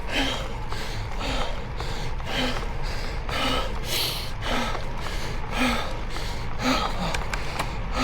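A cyclist's heavy, laboured breathing from the exertion of a steep climb: hard exhalations about once a second, each with a slight voiced grunt.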